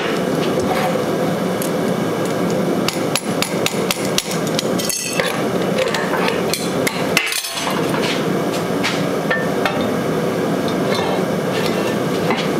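Repeated irregular metal clanks and hammer-like strikes over a steady loud rushing noise of workshop equipment, while a red-hot square steel bar is being twisted.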